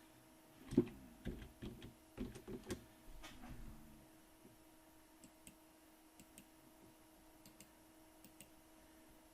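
Computer mouse clicking as a clamp is placed in a CAD drawing: a quick run of clicks and light knocks in the first few seconds, then occasional faint ticks, over a steady low hum.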